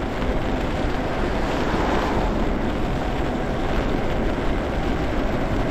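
Steady wind rush over the microphone mixed with the hiss of e-bike tyres on a wet road, while riding in the rain.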